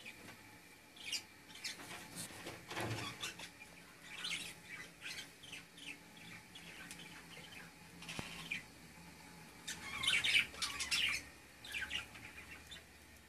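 Caged budgerigars chirping: scattered short, high chirps and chatter, busiest and loudest about ten seconds in.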